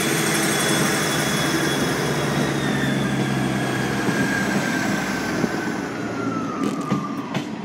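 EMR Regional diesel multiple unit moving off past the platform: steady engine drone with a whine that slowly falls in pitch, and a few sharp wheel clicks over the rail joints near the end as the last coach goes by.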